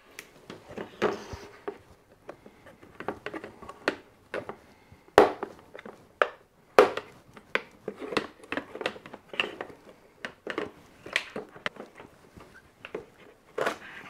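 Irregular plastic clicks, creaks and knocks as the two clipped-together halves of a Hotpoint washing machine's plastic soap dispenser box are prised apart, with two sharper knocks about five and seven seconds in.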